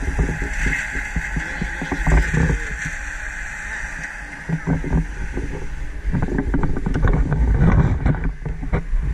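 Wind buffeting a handheld action camera's microphone as a low, uneven rumble, with bursts of rustling and knocks from the camera being handled, thickest in the last few seconds.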